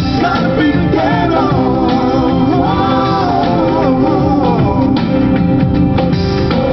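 Christian song music: a wavering melody line over guitar and a steady band backing.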